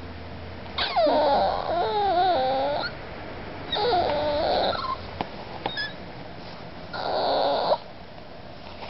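Eight-week-old Miniature Pinscher puppy whining to be let up for attention. Three high whines: the first about two seconds long and wavering in pitch, then two shorter ones.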